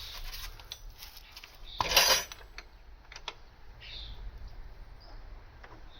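Metal tools clinking. A louder clatter lasts about half a second, two seconds in, and a couple of sharp clicks follow about a second later.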